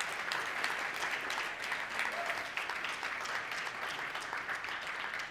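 Audience applauding steadily, a roomful of hands clapping.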